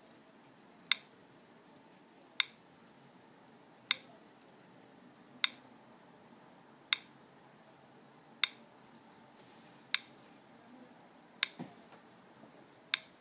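iPhone VoiceOver's page-loading tick: a short click repeating evenly about every second and a half while Safari loads a web page. A faint, duller knock comes in about three quarters of the way through.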